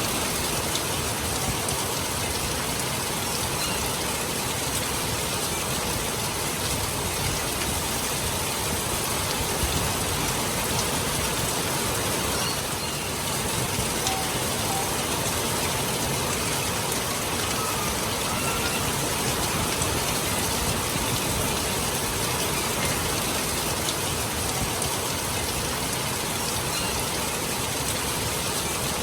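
Steady rain falling, an even hiss of rain on surfaces that does not let up.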